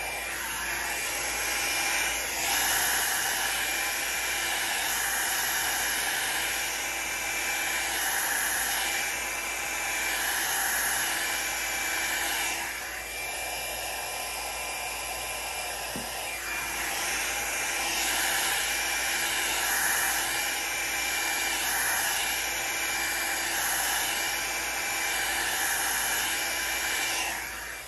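Revlon hand-held hair blow dryer running steadily, a rushing air noise with a thin whine. Its loudness rises and falls slightly, dipping about halfway through, and it stops abruptly at the end.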